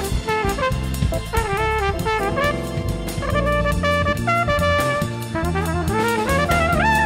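Instrumental jazz-funk played live by a small band: a melodic lead line with bending, sliding notes over electric bass guitar and a drum kit keeping a steady groove.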